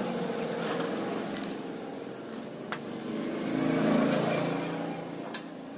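A passing motor vehicle's engine, swelling to its loudest about four seconds in and then fading, with a few light clicks.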